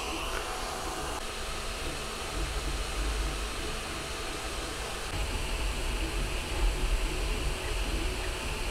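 Wuxn WXR 3D printer running mid-print: the steady humming hiss of its cooling fans, with a low, uneven rumble underneath from the moving print head and bed. Not silent, but moderately quiet.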